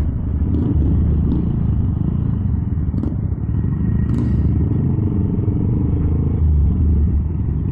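A small 125cc Honda minibike riding slowly, its engine running under a steady low rumble from the microphone on the moving bike.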